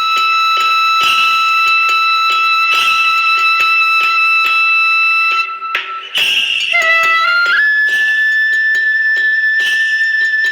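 Background music: a high melody of long held notes over a steady beat, with a short break about five and a half seconds in before the melody moves to a higher held note.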